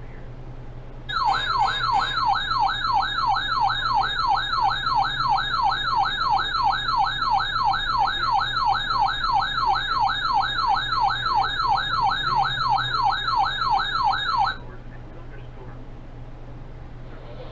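Electronic siren-style alert tone, sweeping rapidly in pitch about three times a second, over a low steady hum. It starts about a second in and cuts off abruptly about three seconds before the end.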